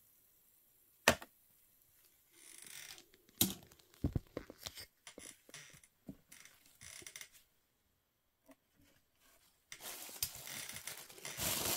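Handling of plastic toy pieces: a sharp click about a second in, then scattered lighter clicks and taps. Near the end comes a steady crinkling of paper tissue.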